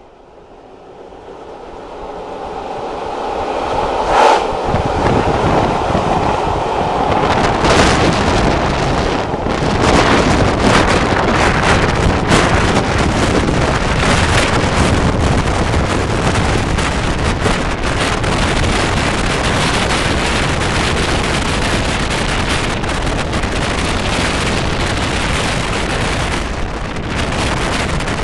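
Wind buffeting a camera microphone held out of the window of a moving railway carriage, over the train's running noise. It swells over the first few seconds, then stays loud and steady, with a few brief louder gusts.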